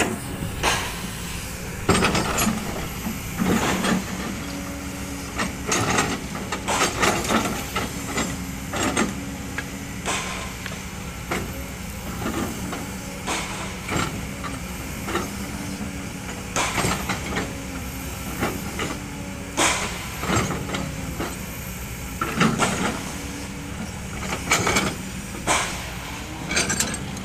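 Kobelco SK200-8 hydraulic excavator working its boom and bucket: the diesel engine runs steadily with a constant hiss, broken by frequent irregular sharp clanks and knocks.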